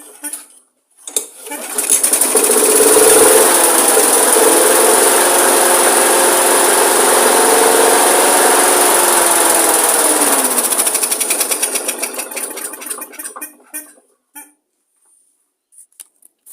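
Briggs & Stratton 500 series single-cylinder four-stroke mower engine catching on a recoil pull and running loud and fast for about eight seconds, then slowing and dying out.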